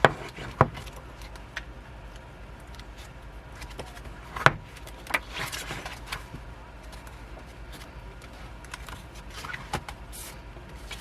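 Pages of a K-pop album photobook being flipped and handled, with brief paper rustles and a few sharp clicks and taps, the loudest near the start and about four and a half seconds in.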